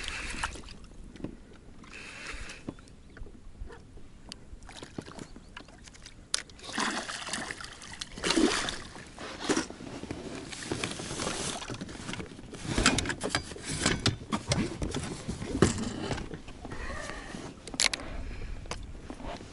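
Irregular knocks, rustles and clicks of fishing gear being handled in an inflatable boat.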